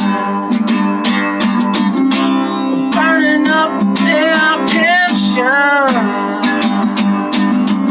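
Music: a rock song led by strummed acoustic guitar, with a wavering lead melody over a steady beat, between sung lines.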